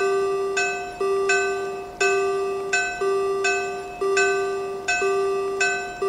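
Railroad crossing warning bell sound effect: an electronic ding-ding crossing alarm with two bell tones ringing out of step, a lower one struck about once a second and a higher one struck a little faster, each ringing on until the next strike.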